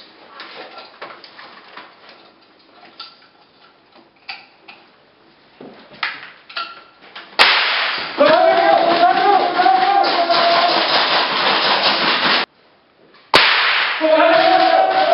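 Soft scattered clicks and knocks of footsteps and gear. About seven seconds in comes a sudden loud burst of shouting mixed with sharp cracks. It cuts off abruptly, then starts again a second later.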